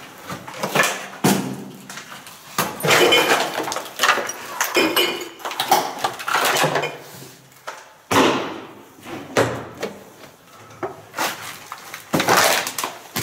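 Irregular knocks, scrapes and crunches of people moving through a derelict building: footsteps over debris and a door being pushed, in a small echoing room.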